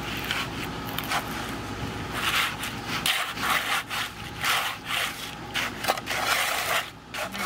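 Steel shovels scraping and slopping through wet concrete in a wooden form, in irregular strokes about once a second.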